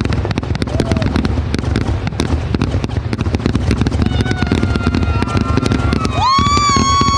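Fireworks going off in a dense, continuous crackle of rapid pops. In the second half a steady high-pitched whistle-like tone with overtones sounds over them, growing strongest near the end.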